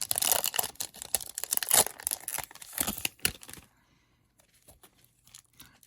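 Foil wrapper of a Yu-Gi-Oh! Speed Duel Tournament Pack being torn open and crinkled: a dense run of tearing and crackling that stops about three and a half seconds in, followed by a few faint clicks.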